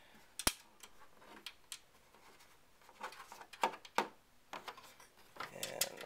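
Small machine screws being started by hand into a computer power supply through the metal back panel of the PC case, making sharp metallic clicks and light taps: a loud click about half a second in and two more close together near four seconds.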